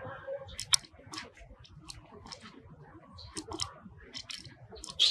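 Irregular crisp clicks and crunches, a few each second, close up, over low handling noise.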